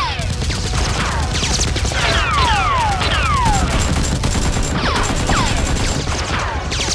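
Rapid gunfire sound effects dubbed over Nerf blaster shooting, with repeated falling whistles that sweep down in pitch every second or so.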